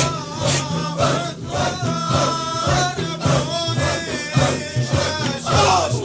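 Group of voices chanting a Sufi zikr (dhikr): a high sung line weaving over a low, pulsing chorus, with a steady beat about twice a second.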